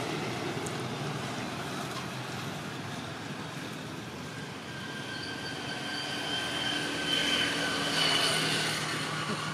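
Steady road traffic noise, growing louder in the second half as a vehicle passes close, with a thin engine whine.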